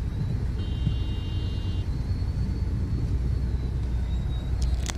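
Car running in slow traffic, heard from inside the cabin as a steady low rumble. A faint high steady tone sounds for about a second, and a sharp click comes near the end.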